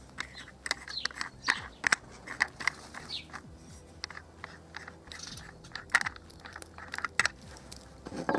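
Irregular metallic clicks, taps and short scrapes of a two-pin flange spanner and cutting disc being handled on an angle grinder, as the spanner is fitted to the disc's clamping nut.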